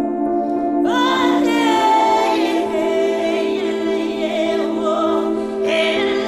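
Music with held chords and a high, wordless singing voice that comes in about a second in, with a new phrase just before the end.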